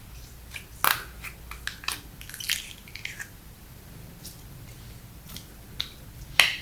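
Slime being squished and stretched by hand, giving irregular sticky clicks and pops, the loudest about a second in and near the end.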